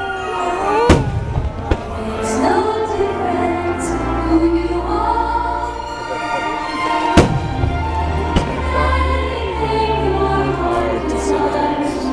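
Fireworks show soundtrack of sweeping orchestral music with singing, played over loudspeakers. About four sharp firework bangs punctuate it: the first about a second in, another just before two seconds, the loudest around seven seconds in, and one past eight seconds.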